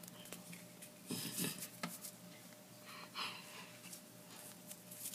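Hands swishing and brushing against each other and the sleeves during a hand routine, with a sharp light slap or click a little before two seconds, over a faint steady hum.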